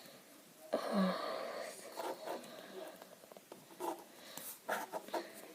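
A breathy exhale about a second in, then faint scattered clicks and taps of plastic Lego bricks being handled and fitted.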